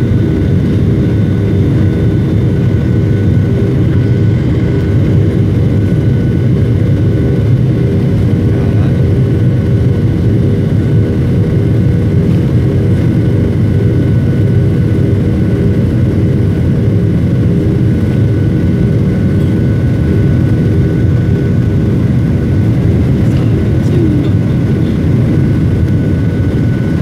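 Jet airliner cabin noise during the takeoff roll, heard from a window seat beside the engine: a loud, steady rumble of the jet engines and wheels on the runway, with a steady whine from the engine.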